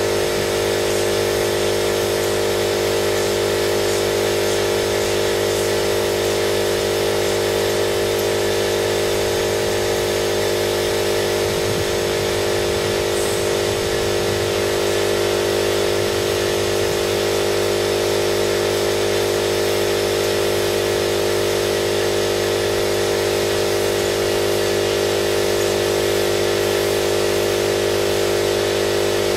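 Motor of the spray-painting equipment running with a loud, steady hum that does not change.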